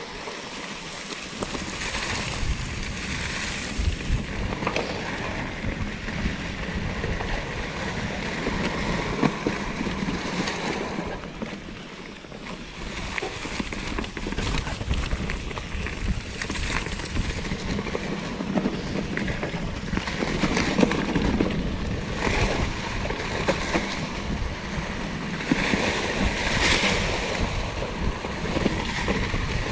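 A 2016 Norco Torrent plus-tyre hardtail mountain bike being ridden on a dirt trail. The tyres run steadily and the bike gives off frequent small clicks and rattles, under wind buffeting the microphone.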